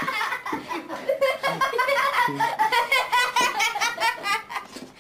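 Hearty, high-pitched human laughter in quick repeated peals, going on without a break.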